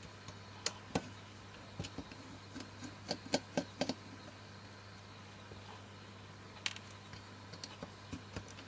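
Small sharp clicks and taps of a screwdriver and fingers on the metal casting of a projector's LCD panel mount, with a quick run of clicks about three to four seconds in, over a low steady hum.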